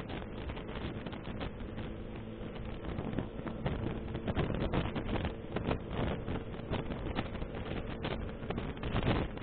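Vehicle driving at speed on an expressway, recorded by a dashcam: steady road and wind noise over a low engine hum, with frequent short gusts or bumps, a little louder from about three seconds in.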